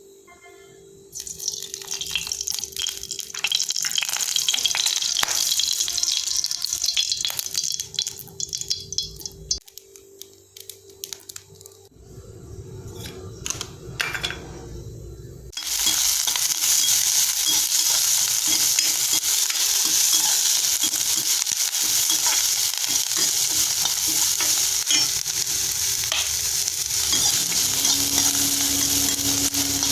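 Chutney ingredients frying in hot oil in a pan: crackling and sizzling that settles into a loud, steady sizzle about halfway through. A steady low hum runs underneath.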